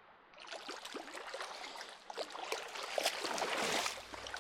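Water splashing and sloshing in a shallow creek, irregular and getting louder toward the end.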